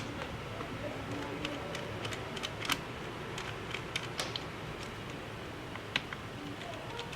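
Light, irregular clicks and taps of small tools and parts being handled during the disassembly of a MacBook Pro laptop, over a steady background hiss.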